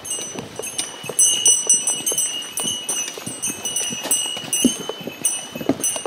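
Footsteps of several hikers walking on a forest trail: an uneven run of soft knocks, several a second. Thin, high steady ringing sits above them.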